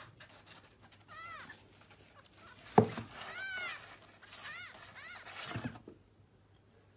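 A young kitten mewing: several short, high-pitched mews, each rising and falling in pitch, among light scratching on cardboard. A single thump about three seconds in is the loudest sound.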